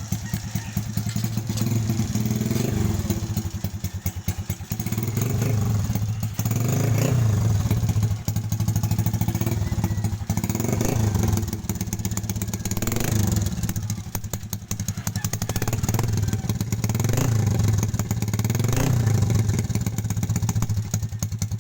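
SYM RV1-2 motorcycle with an aftermarket Charama exhaust pipe idling and being revved again and again, the engine note rising and falling every few seconds.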